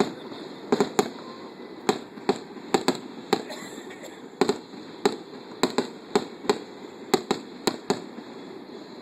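Fireworks going off in quick, irregular succession: many sharp bangs, some coming in pairs, until they stop about eight seconds in.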